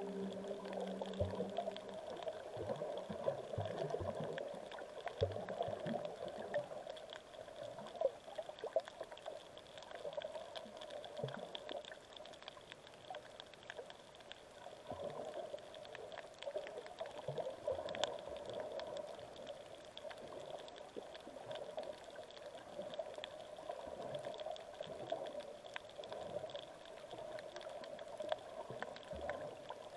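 Sea water moving around a camera held in the water: a steady, muffled wash with gurgling and scattered faint clicks and pops.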